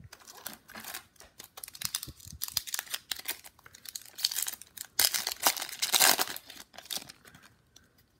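Foil wrapper of a 2019 Topps Series 2 baseball card pack crinkling as it is handled and then torn open: a quick run of crackling rips, loudest a little past the middle.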